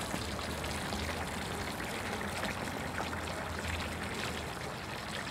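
Steady rain with water running and trickling, and many small drop ticks scattered through it.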